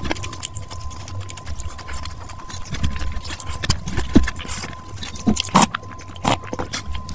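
Close-up eating sounds of rice eaten by hand: irregular wet chewing clicks and lip smacks, with a faint steady tone underneath.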